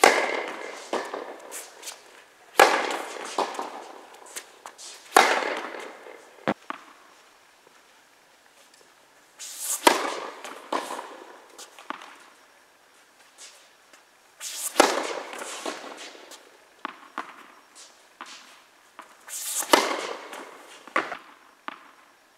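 Tennis ball struck by rackets in an echoing indoor hall: six sharp, loud hits a few seconds apart, each with a ringing tail, the last one a serve. Quieter bounces and hits come between them.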